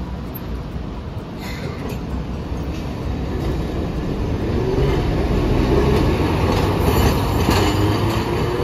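Hiroshima Electric Railway tram car 707 rolling slowly around the curves of a track junction, its steel wheels rumbling and clattering over the points and crossings. From about halfway a wavering wheel squeal comes in from the wheels grinding on the curved rail, and the sound grows louder as the tram turns past.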